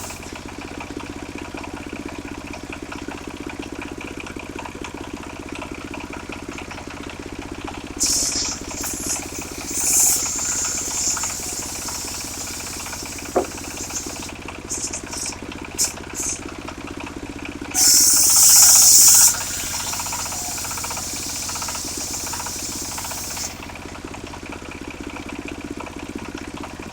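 Engine-driven circular saw running steadily, its blade for hard wood biting into hard, dry black wood in high, hissing bursts: a few short cuts in the first half, then the loudest and longest cut about two-thirds of the way in.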